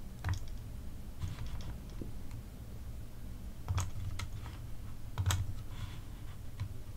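Scattered computer mouse and keyboard clicks, a handful of short separate clicks at irregular intervals, over a low steady hum.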